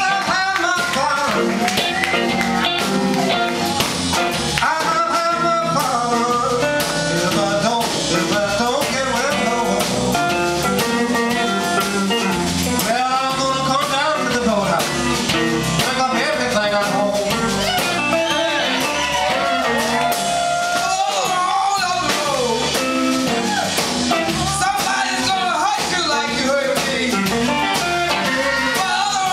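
Live blues band playing, with electric guitars, bass and drums, and a singer's voice over the band.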